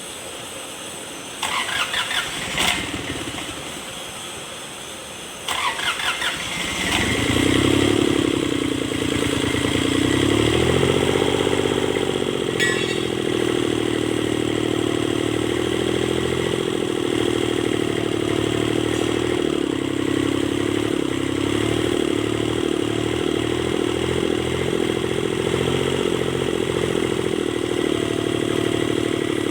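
Kubota D905 three-cylinder diesel being cranked by its starter in two short attempts. It catches on the second, swings up in speed, then settles into a steady run.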